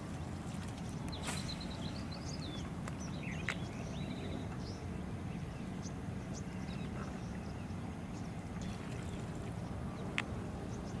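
Outdoor ambience over water: a steady low rumble with a few short, high chirps and whistles from small birds in the first few seconds, and a sharp click about ten seconds in.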